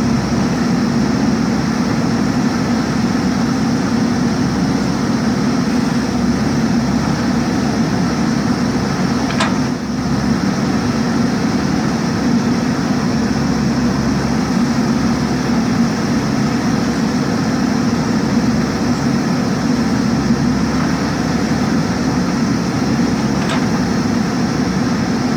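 JCB 3DX backhoe loader's diesel engine running steadily, with two brief sharp sounds about nine and twenty-three seconds in.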